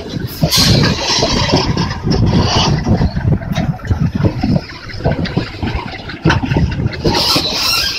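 Goods train rolling past close by: a continuous rumble of wagons on the track with irregular clanks and rattles.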